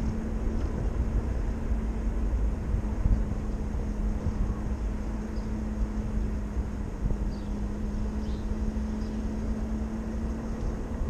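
Wind rush and road rumble on a chest-mounted action camera riding an electric moped, with a steady low hum throughout.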